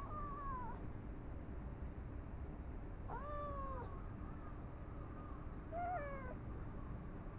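A brown tabby cat meows three times, a few seconds apart, each short call sliding down in pitch at its end.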